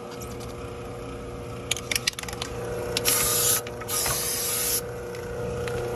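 Aerosol can of clear Flex Seal rubber coating spraying in two short hisses, each about half a second long, after a run of quick sharp clicks.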